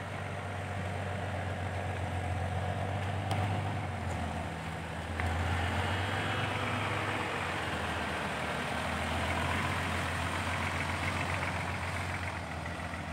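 Loaded Isuzu dump truck's diesel engine running steadily as the truck drives slowly over a dirt track, getting abruptly louder about five seconds in.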